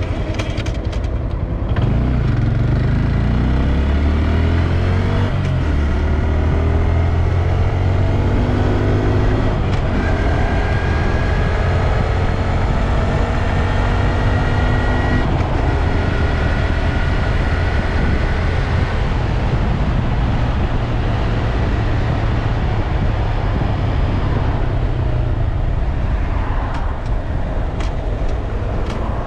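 2022 Honda Grom's single-cylinder engine pulling through the gears while riding: its pitch climbs twice in the first several seconds, then it runs at a steady cruise, with a thin high tone over it for a while in the middle.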